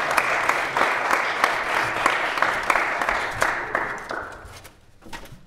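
Small audience applauding, the clapping dying away about four seconds in.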